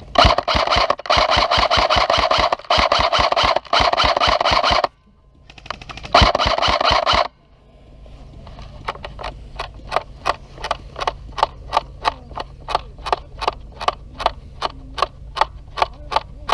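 Airsoft electric gun fired on full auto: two long buzzing bursts, the first about five seconds long and the second about a second long, each a rapid rattle of shots with a whining gearbox. Afterwards a steady run of sharp ticks about two a second.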